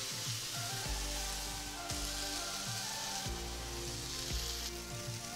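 Jerk-marinated whole snapper sizzling steadily in a hot grill pan, over background music with a slow bass line.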